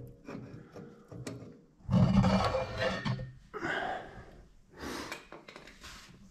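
Handling noise close to the microphone as the camera is moved: irregular rubbing and knocking in rough bursts, loudest about two to three seconds in, with breathing.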